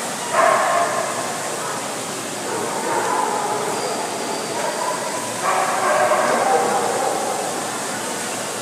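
Dogs barking over a background of crowd chatter, with louder bouts of barking just after the start and again about five and a half seconds in.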